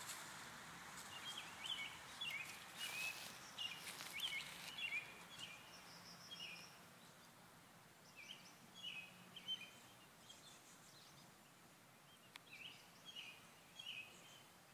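Faint bird song: series of short chirping notes repeated in several phrases, with light rustling of a leafy branch during the first half.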